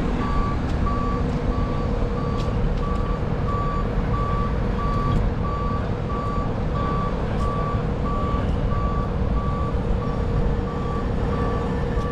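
Marine travel lift's warning beeper sounding over the steady running of its engine, one even tone repeating about one and a half times a second.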